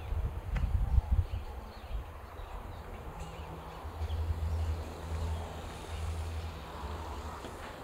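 Outdoor ambience on an open bridge: irregular low rumbling of wind on the microphone, strongest in the first second and again around four seconds in, with a few faint bird chirps.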